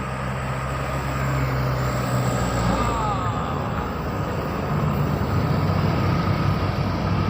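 Bus engine running with a steady low hum. A brief wavering higher tone comes about three seconds in.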